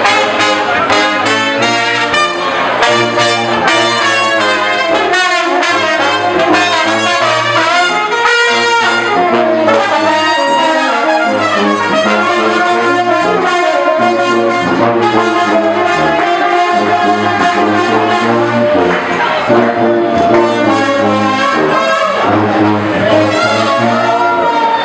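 Live brass band playing: sousaphone holding a bass line under saxophone, trombone and other horns.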